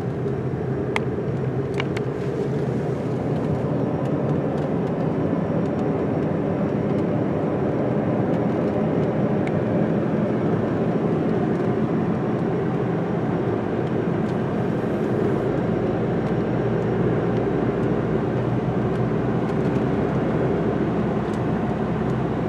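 Steady engine and tyre road noise heard from inside a moving car's cabin, with a couple of light clicks about one and two seconds in.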